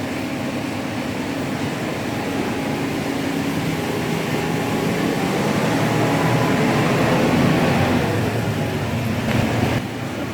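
Shukaku SKUMF-50 mini ceiling fan running with a steady hum. It grows a little louder toward the middle and drops suddenly near the end.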